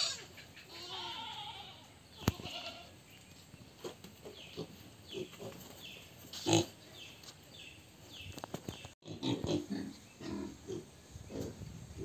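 Young pigs squealing and grunting in a pen, with one loud squeal about six and a half seconds in and low grunts near the end.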